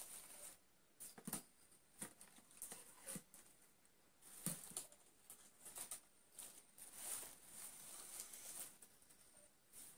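Faint rustling and scattered light clicks of flower stems and leaves being handled and pushed into a vase, with a longer stretch of rustling near the end.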